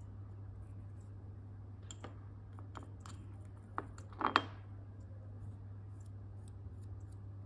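A small metal spatula scraping and clinking against a small ceramic dish while mixing a paste of clay powder and urushi lacquer: scattered light clicks, the loudest clink about four seconds in, over a steady low hum.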